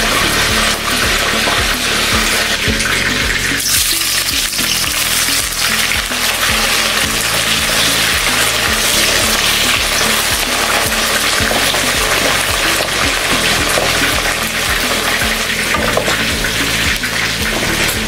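Sliced onions sizzling in hot oil in a wok and being stirred with a spatula, the sizzle starting strongly about four seconds in. Background music with a steady beat plays underneath.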